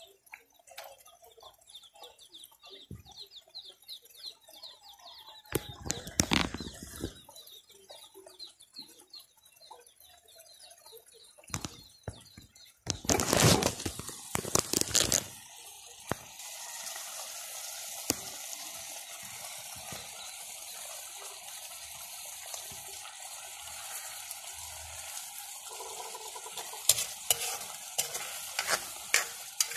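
Malunggay leaves and sardines sizzling in an aluminium pan, a steady hiss from about halfway on, after a couple of loud knocks and rustles. Near the end a metal spoon stirs the food, clinking against the pan.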